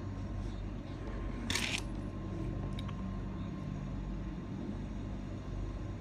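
Steady low background hum with a brief rustle about one and a half seconds in and a faint click a little later.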